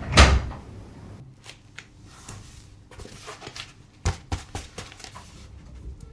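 Objects being handled: one sharp thump right at the start, followed by a scatter of light clicks and taps.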